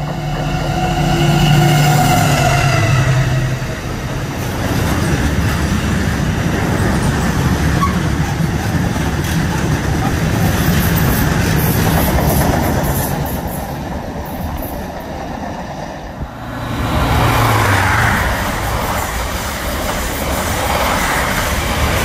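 A diesel freight locomotive passes with its engine note plainly heard, followed by a long string of tank wagons rattling over the rails. About sixteen seconds in, the sound cuts to a passenger train rushing past.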